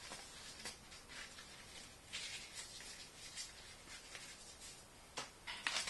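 Faint rustling and light handling noises as a thin microscope dust cover is folded and packaging items are moved about, with a few sharper clicks about five seconds in as a small plastic box is picked up.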